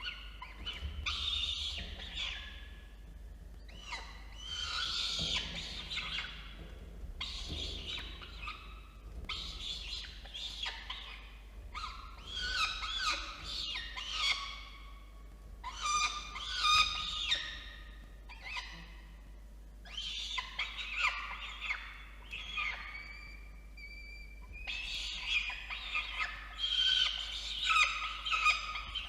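Peregrine falcon chicks giving harsh, screechy begging calls in repeated bursts of a second or two while being fed in the nest box.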